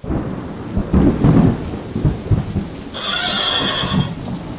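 Thunderstorm sound effect: steady rain with rolling thunder that is loudest about a second in, and a horse whinny about three seconds in.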